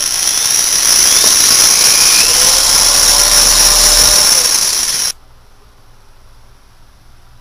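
Handheld electric drill running steadily with a high whine over the motor noise, cutting off suddenly about five seconds in.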